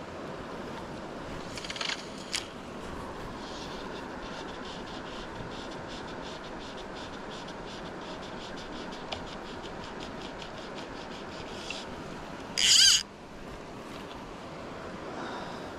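Steady rush of a fast-flowing river over rocks. About 13 seconds in comes a short, loud, high-pitched buzz.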